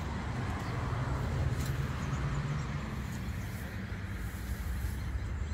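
A vehicle engine running steadily, a low hum under a faint hiss of surrounding noise.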